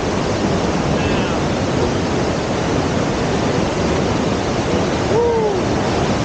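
Steady rush of a waterfall, an even wall of water noise. About five seconds in, a short tone rises and falls once.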